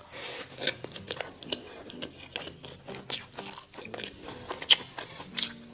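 Close-miked eating of mala xiang guo: crisp, irregular crunching bites and chewing, with one especially sharp crunch near the end.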